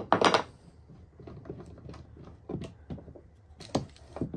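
Bar clamps being released and taken off a freshly glued wooden laptop stand on a workbench: a loud clack and clatter at the start, then scattered light clicks and knocks of clamp parts and wood, with a few sharper knocks near the end.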